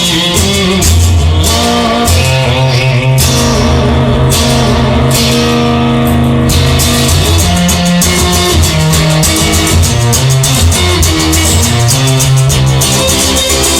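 Instrumental rock music played on electric guitars, Fender Stratocasters and a Telecaster, over a bass guitar, with held notes and changing melodic lines.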